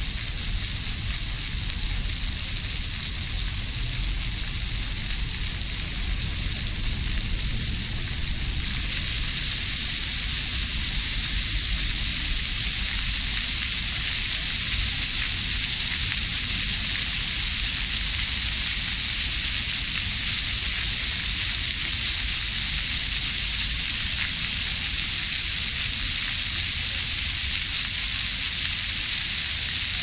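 Fountain jets of a mirror-pool fountain spraying and splashing onto the shallow water, a steady hiss with a low rumble underneath. The spray gets louder about eight seconds in.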